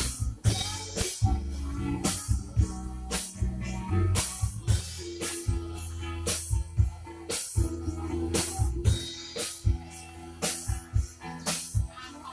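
Live band music over a PA sound system: a drum kit keeping a steady beat, with a strong hit about once a second over held bass and guitar notes.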